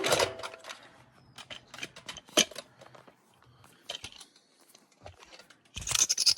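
Scattered light clicks, taps and rattles of small objects being handled, with a short rustling scrape near the end.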